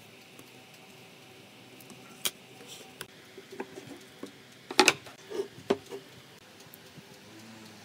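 Pine frame pieces being handled and set down on a wooden workbench, giving scattered light wooden knocks and clicks, the loudest a quick cluster about five seconds in, over a faint steady background hum.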